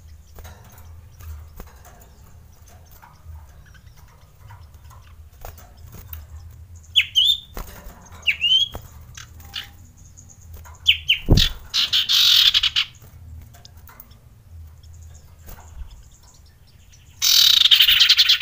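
Male common iora calling from its cage: a few short sharp calls with a quick pitch flick, then two longer harsh rasping bursts, the second near the end. A dull thump comes a little past halfway.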